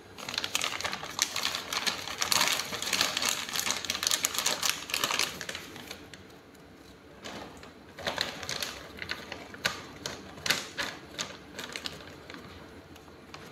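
Plastic bag of shredded mozzarella crinkling and rustling as it is handled and shaken out over a pot, a dense crackle with a short lull about six seconds in.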